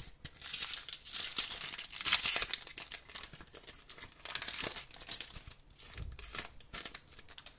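Hockey card pack wrapper being torn open and crinkled by hand, a dense crackling that is loudest about two seconds in and thins out near the end.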